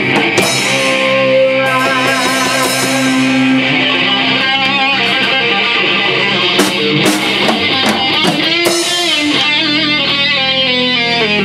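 Live rock band playing: electric guitars hold wavering, bending lead notes over a few drum and cymbal hits, then settle into a long held chord near the end.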